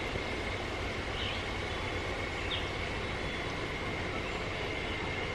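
Steady outdoor background noise, with a few faint, short high chirps from birds scattered through it.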